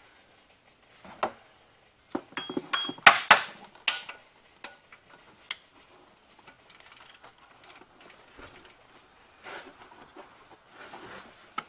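Hand tools and metal engine parts clinking and knocking as parts are worked back into place in the engine bay: scattered clicks and clanks, busiest about three to four seconds in, one with a short metallic ring.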